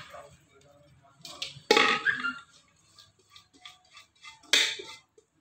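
Kitchen handling sounds around a steel vessel of chopped onions: a few short scrapes and knocks, the two loudest about two seconds apart, with light ticks between.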